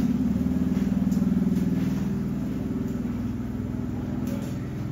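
A motor vehicle engine running with a low, steady hum. It grows gradually quieter over the last few seconds.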